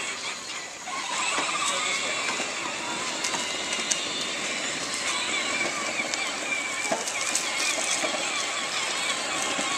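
Battery-powered ride-on toy tractors driving, their electric motors and gearboxes giving a steady, slightly wavering whine over the rumble of hard plastic wheels on asphalt, with occasional small clicks and knocks.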